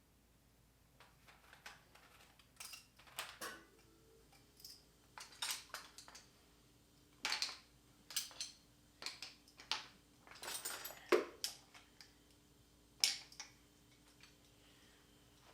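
Metal hand tools clinking and clattering as they are handled and set down in a toolbox, a string of irregular knocks and clicks, a few leaving a short metallic ring.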